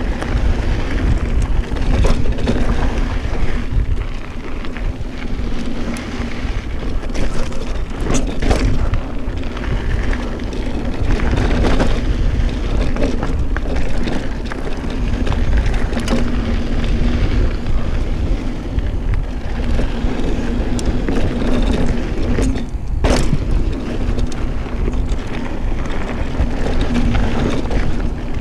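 Specialized Stumpjumper mountain bike ridden along a dirt trail: a continuous rumble of tyres and wind noise, broken by sharp knocks and rattles from bumps, the loudest about 23 seconds in.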